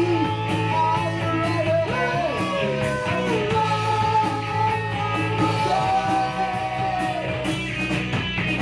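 Rock music: a band playing with electric guitar lines held over a steady drum beat, between sung verses.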